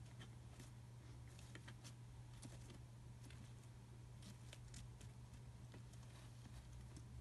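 Toy poodle puppy chewing on a nylon backpack strap: faint, irregular little clicks and rustles over a steady low hum.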